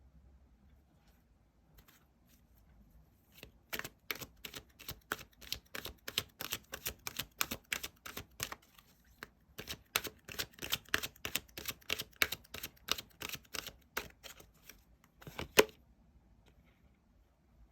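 Tarot cards being shuffled and handled by hand: a run of quick, sharp clicks, about three or four a second, with a short break in the middle and one louder slap near the end.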